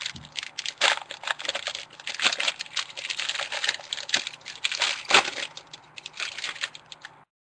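Football trading cards being handled and flipped through by hand: an irregular run of quick clicks, snaps and slides of card stock against card, cutting off abruptly near the end.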